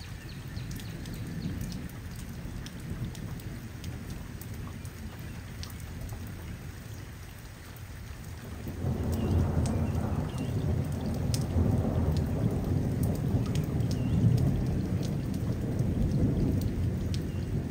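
Steady rain with scattered drop ticks, and thunder that swells into a long low rumble about halfway through and keeps rolling.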